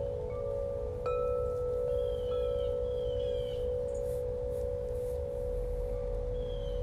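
Meditative ambient background music: a steady singing-bowl-like drone, a chime struck about a second in, and short high chirps repeating over it.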